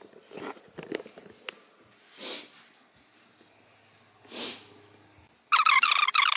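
Soft footsteps and handling noise with two audible sniffs or breaths, about two seconds apart. About a second from the end, a loud, high, warbling sound starts abruptly and drowns them out.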